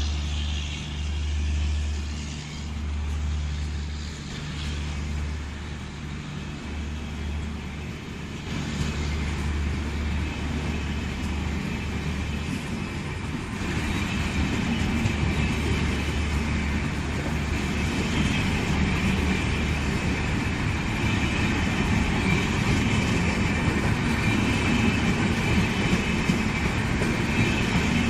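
Electric-locomotive-hauled passenger train moving slowly through a station: a pulsing low hum at first, then the rolling clatter of coach wheels on the rails growing louder about halfway through and carrying on steadily.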